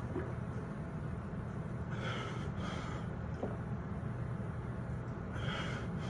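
A man gulping down a drink from a carton with his head tipped back, drawing two short, noisy breaths through the nose, about two seconds in and again near the end, over a steady low hum.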